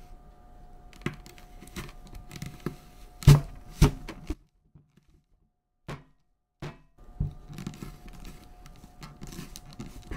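A whole apple being forced down through a plastic apple slicer-corer on a wooden cutting board, too big for the slicer: the apple flesh crunches and cracks irregularly, with the sharpest, loudest cracks a little past three seconds in, then more crunching after a brief quiet gap.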